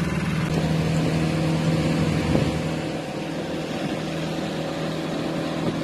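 Tour boat's motor running steadily at cruising speed, heard from on board as a constant hum over water and wind noise.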